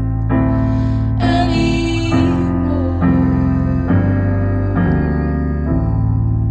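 Piano song: sustained piano chords, a new chord struck about every second.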